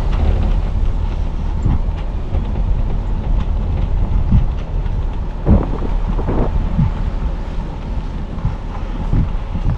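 Car driving on a mountain road, heard from inside the cabin: a steady low rumble of tyre and road noise with wind, broken by a few short knocks from bumps in the road surface.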